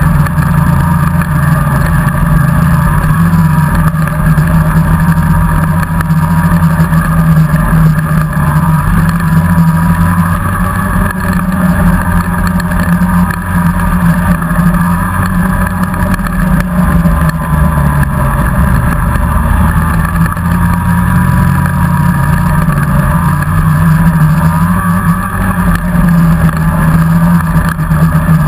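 Polaris snowmobile engine running at a steady cruise under way, heard from the rider's seat, with small rises and dips in engine speed.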